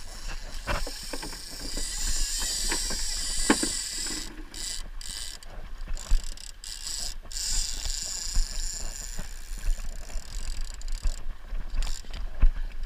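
Baitcasting trolling reel ratcheting as the angler reels in a hooked salmon, with irregular clicks over the rush of wind and water around the boat.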